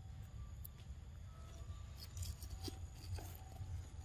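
Pig-tailed macaque eating: faint soft clicks of chewing and lip-smacking, most of them a little after halfway, over a steady low rumble.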